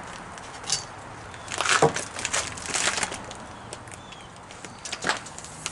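Handling of a wooden form board and clamps against a wall: a cluster of scrapes and knocks about a second and a half in, and a sharp knock near the end.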